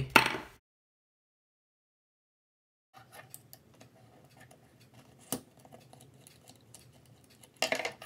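Faint small clicks and taps of fingers handling a small circuit board and its wires while unscrewing a nut by hand, with one sharper click about five seconds in. The sound cuts to dead silence for about two seconds early on, an edit in the recording.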